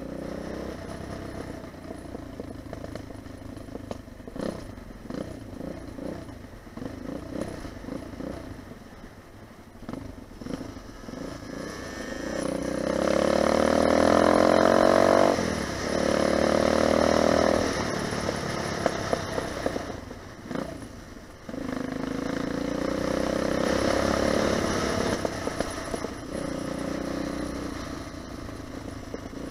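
Dirt bike engine under way on a gravel track, heard from the rider's helmet. It pulses at low revs at first, then is opened up hard about a third of the way in and revs high, with a brief dip partway. It backs off for a moment past the middle, then is opened up again before easing toward the end.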